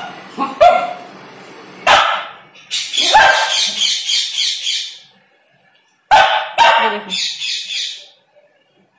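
Beagle puppy barking at a sleeping dog to wake her for play, in short runs of sharp barks with higher, yelping stretches and a brief pause about halfway through.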